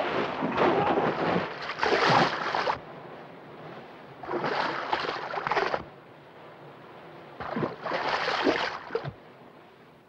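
Depth charges going off astern of a warship, each heard as a heavy rush of erupting and falling sea water; three such surges, about three seconds apart, with the sea washing between them.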